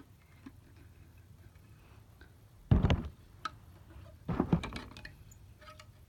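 Plastic parts of a snap-fit model airliner kit being handled and pressed together: scattered small clicks and taps, with two louder, brief bursts of handling noise around the middle.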